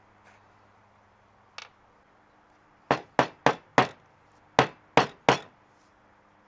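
Caulking tube knocked against a hard surface: seven sharp knocks in two quick runs, four then three, after one lighter tap, to clear the material from the tip before opening it.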